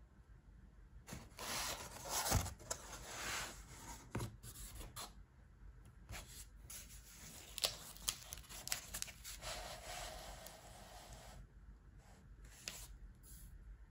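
A cardboard LP mailer being opened and handled: the corrugated flaps are pulled and folded back, with irregular rubbing and scraping of cardboard and a few sharp clicks.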